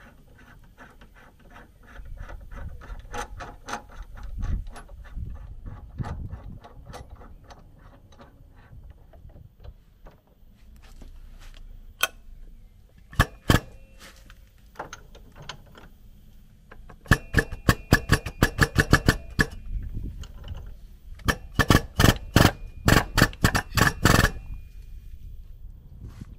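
Metal-on-metal clicking and clinking from a ball-joint press setup being worked by hand on a van's front axle: runs of rapid clicks, with the loudest, densest bursts in the second half.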